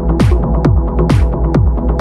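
Electronic dance music: a steady four-on-the-floor kick drum a little over two beats a second, with an open hi-hat between the kicks over sustained synth chords.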